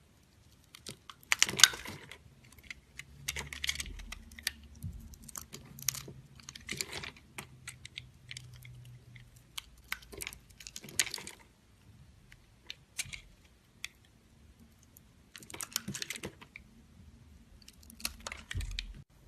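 Soap being cut with a blade, giving crisp, crunchy crackling in about six separate bursts of cutting, with short quiet gaps between them.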